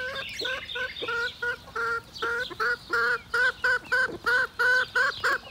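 Mother hen calling loudly, a fast run of short repeated notes that become regular at about four a second and louder about halfway through, with chicks peeping.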